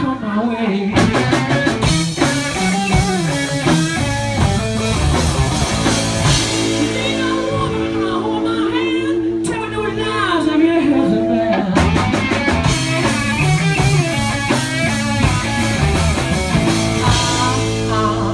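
Live rock band playing: a singer over a Les Paul-style electric guitar and a Ludwig drum kit, with the drums and guitar driving steadily.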